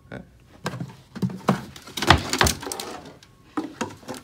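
Black plastic buckets being handled and moved on a bench: a series of hollow knocks and clunks with some scraping, the loudest pair about two seconds in.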